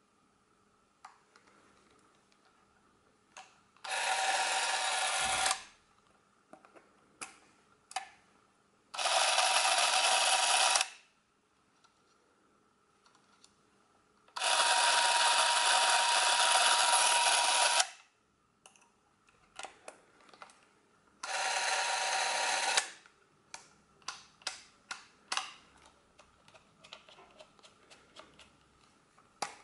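Braun Nizo S8M Super 8 cine camera running, started and stopped four times: each run is a steady mechanical whirr lasting a couple of seconds, the third the longest, showing the drive working smoothly. Small clicks of switches and handling come between the runs and more often after the last one.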